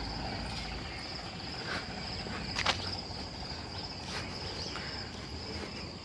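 Steady high-pitched trilling of insects, with a few short sharp sounds over it, the loudest about two and a half seconds in.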